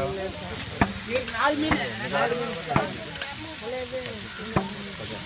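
Masala-coated fish frying on a large flat griddle with a steady sizzle, and four sharp clanks of a metal spatula striking the griddle.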